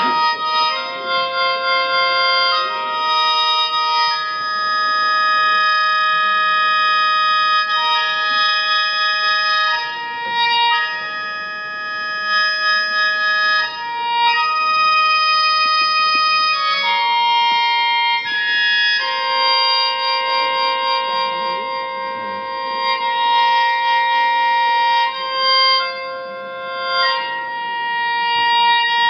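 Flute playing a slow melody of long, held notes that move step by step, with no pause.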